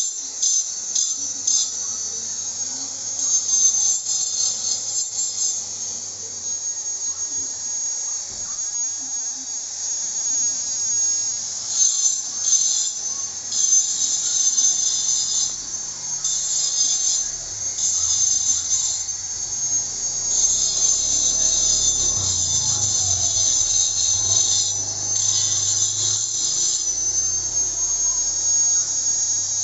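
Electric grinding machine running with a steady high whine that wavers slightly in pitch, and a harsh grinding hiss that comes and goes in stretches of one to a few seconds.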